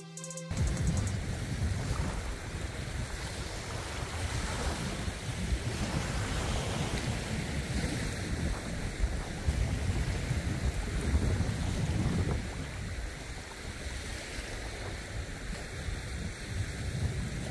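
Wind buffeting the microphone: a gusty low rumble that rises and falls for the whole stretch, with music cutting off about half a second in.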